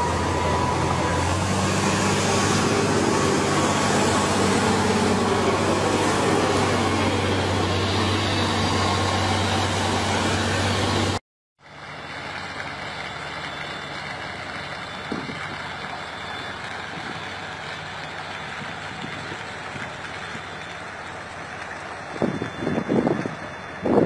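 Heavy tracked armoured engineering vehicle's engine running loud and steady as its dozer blade pushes through trees and earth. It cuts off abruptly about eleven seconds in, giving way to a quieter, steady heavy-truck rumble as a tractor unit hauls a tracked trencher on a multi-axle trailer, with a few louder bumps near the end.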